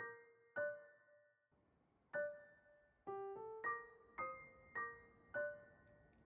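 Background music: a gentle melody of single keyboard notes, each struck and left to fade, about one or two a second.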